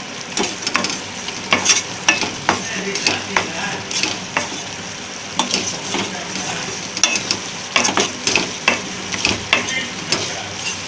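Wooden spatula stirring and scraping grated coconut cooking in sugar syrup in a nonstick pan: irregular scraping strokes over a steady sizzle.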